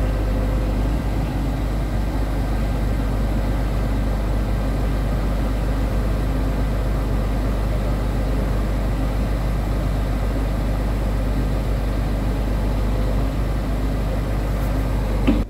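Scania R420's six-cylinder diesel engine running steadily, driving the hydraulics of its Palfinger loader crane as the boom folds in.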